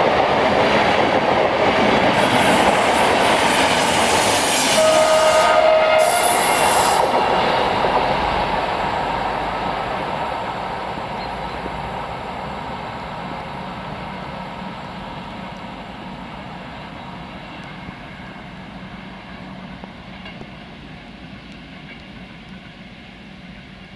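Passenger train's coaches rolling past over the rails, loud at first, with a brief steady tone about five seconds in. The sound then fades evenly as the train pulls away into the distance.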